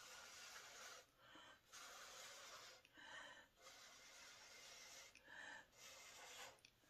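Faint breath blown through a drinking straw onto wet acrylic pour paint, to push out and soften hard paint edges. Four long blows with short pauses for breath between them.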